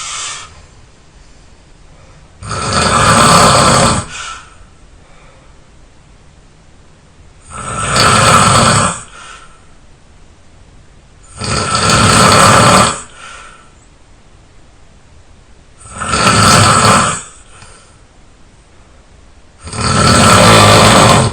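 A person snoring loudly while asleep: five long snores about four seconds apart, each lasting a second or so and trailing off in a short softer breath, with quiet between them.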